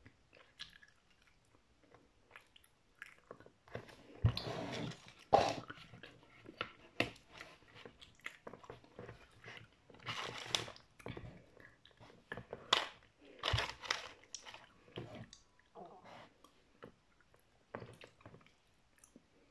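Close-up chewing and crunching of hard chocolate from an Easter egg, right at the microphone. It comes as many irregular crisp crunches, starting in earnest a few seconds in.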